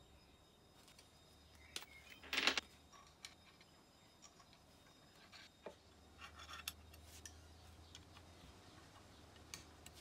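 Light clicks and taps of machined metal CNC Z-axis parts (spacers and top plate) being handled and fitted together by hand, with one louder clack about two and a half seconds in and a few quick ticks a little after the middle.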